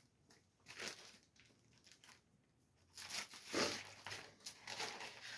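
Plastic comic-book bags crinkling as bagged comics are handled and shuffled: a short rustle about a second in, then denser crinkling from about three seconds on.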